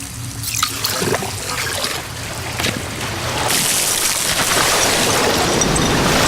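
Coke Zero being poured and fizzing, with a few sharp clicks at first; the pour and fizz grow louder about halfway through.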